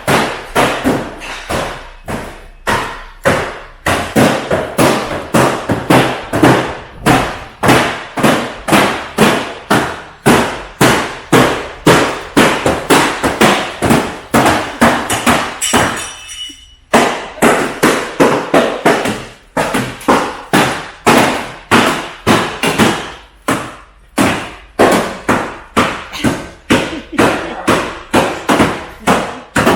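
Repeated hammer blows on a rusted car's steel bodywork, about two to three strikes a second, each ringing briefly, with a short pause about halfway through.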